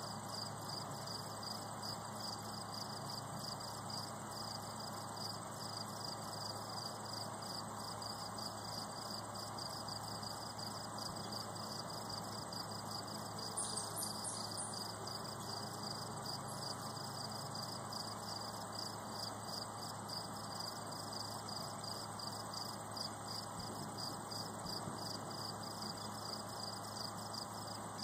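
Crickets chirping in a steady, rapid pulsing trill, with a brief higher chirp about halfway through.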